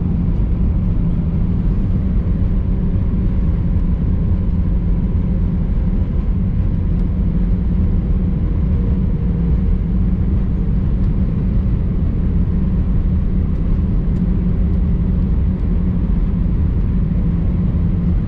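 Steady low rumble of an Airbus A319 heard from inside the passenger cabin, engines and airframe running with a faint steady hum, as the airliner rolls on the ground after landing.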